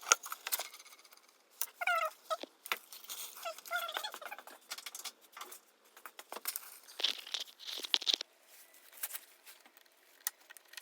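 Metal brake parts being handled and set down: scattered clicks, clinks and knocks, with a few short squeaky pitched sounds around two and four seconds in and a brief scraping rasp near eight seconds.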